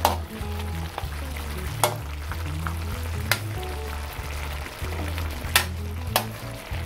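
Metal spatula stirring and scraping through a wok of simmering pata tim, with about five sharp clinks of metal on the pan over a steady sizzle from the sauce.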